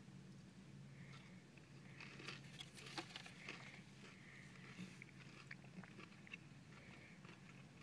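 Faint chewing of a crispy breaded McDonald's Southern Style Chicken Select: small crunches and wet mouth clicks, with one sharper crunch about three seconds in.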